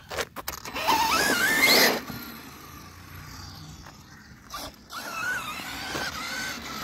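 8S Mojave RC truck's brushless motor whining as it pulls away, the pitch climbing and wavering with the throttle, loudest about a second in. A fainter wavering whine follows near the end as it runs off down the street, after a few clicks at the start.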